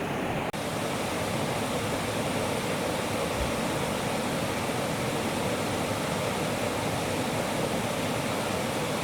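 Mountain valley stream rushing steadily over rocks. About half a second in, a brief dropout, and the rush comes back with more hiss in it.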